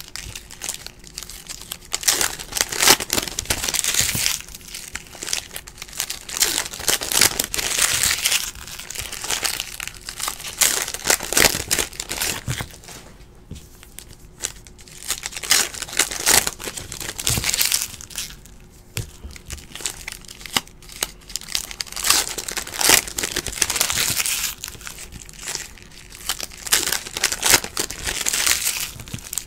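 Foil wrappers of Donruss basketball card packs crinkling and tearing as the packs are ripped open one after another, with the cards flicked through by hand. The noise comes in bursts every few seconds.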